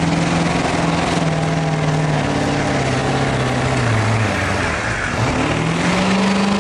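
Pickup truck engine running hard while pulling a weight-transfer sled. Its pitch slowly sinks over the first four seconds as the load builds, then it revs back up about five seconds in and holds steady.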